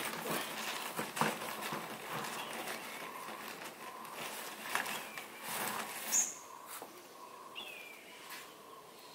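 Water sloshing and dripping as hand-forged iron tongs are lifted out of a plastic bucket of quench water, with scattered clicks of the metal being handled. Later a bird gives two short high chirps.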